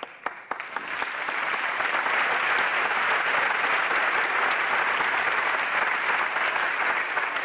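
Audience applauding: a few scattered claps at first, swelling within about two seconds into steady, dense applause.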